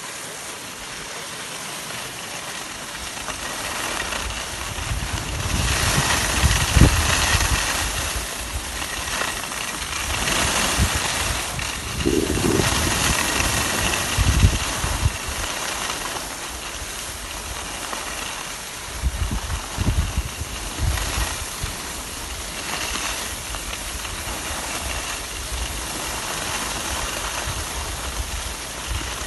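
Skis hissing and scraping over packed snow on a downhill run, with wind buffeting the microphone in low rumbling gusts that come and go.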